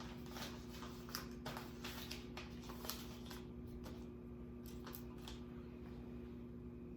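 Faint handling noise: scattered light clicks and rustles for the first five seconds or so, over a steady low hum.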